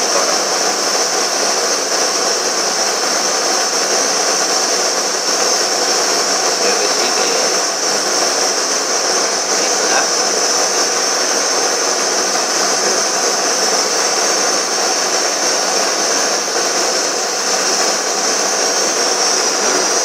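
Handheld gas blowtorch flame hissing steadily as it heats a copper pipe joint for silver brazing.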